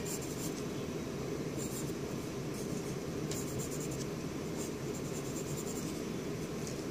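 Pencil lead scratching on lined notebook paper in short, irregular sketching strokes, over a steady low background hum.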